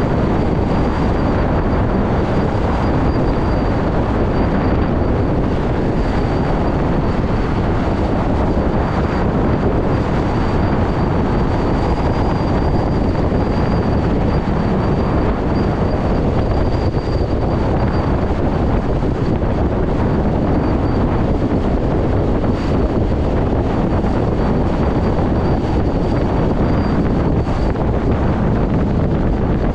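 Steady wind rush and road noise on the microphone of a moving electric motorcycle, with a thin high whine held over it that stops near the end.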